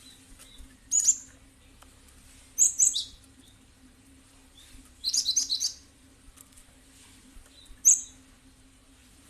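Cinereous tit (gelatik batu) calling in short bursts of high chirps: one about a second in, a quick pair around three seconds, a rapid run of notes at about five seconds, and a single chirp near the end.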